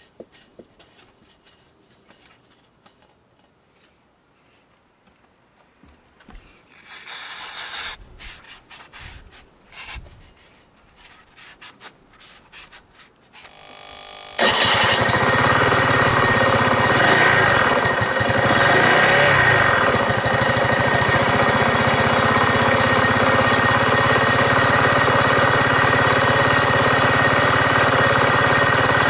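Suzuki Let's4G scooter's small four-stroke single-cylinder engine starting about halfway through, then running steadily, loud and close, on fresh oil. Before it starts there are only a few light clicks and a short rustle.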